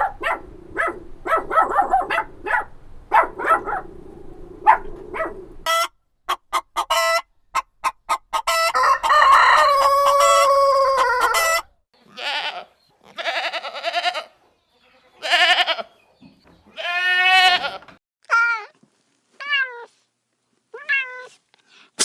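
Chickens clucking, then a run of sharp taps, then a rooster crowing once for about three seconds. After that, goats bleat in a series of separate calls, the later ones short and falling in pitch.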